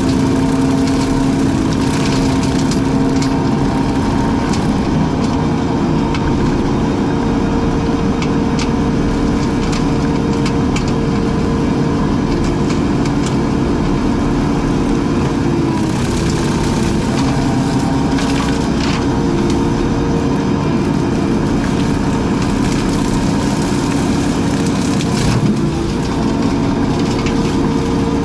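Brush-cutting machine's engine running steadily under load, its pitch shifting slightly now and then, while brush and wood crack and splinter as it is cut.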